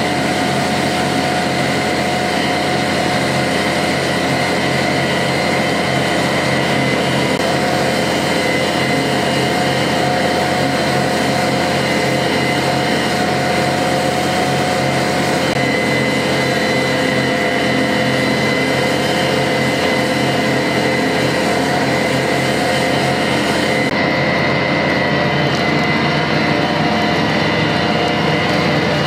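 Tractor engine running steadily under load while pulling a field cultivator through the soil, heard from on the tractor: an even drone with constant tones. The high hiss eases a little near the end.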